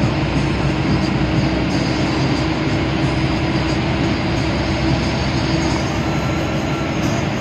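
Steady running noise of an air-conditioned bus on the road, heard from inside the cabin: a constant engine hum under even road and tyre noise, with no single event standing out.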